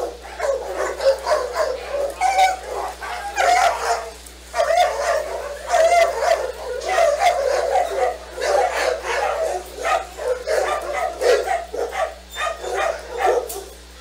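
A pack of senior dogs barking at once in a continuous, overlapping chorus, dipping briefly about four seconds in and again near the end. The excited clamour goes with feeding time, as a person carries their food bowls among them.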